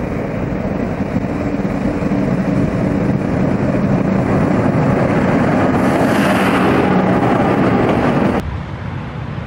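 V/Line diesel locomotive engine running with a steady hum, growing louder as the train hauling passenger carriages approaches and passes close by. A hiss swells about six seconds in, and the sound drops suddenly near the end.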